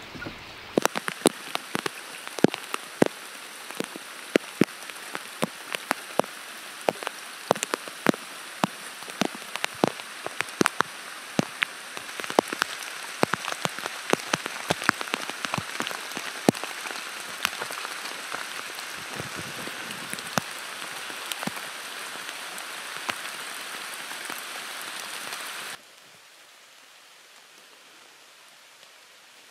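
Steady rain, with many sharp drops landing close by. About 26 seconds in it cuts off suddenly, leaving a much quieter faint hiss.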